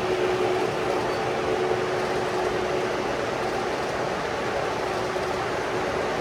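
O scale model train running along the layout's track: a steady rumble with a constant hum.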